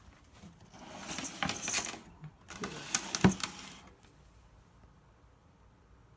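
Rattling and clinking of small hard objects being handled, in two spells with sharp clicks, the loudest click a little past the middle.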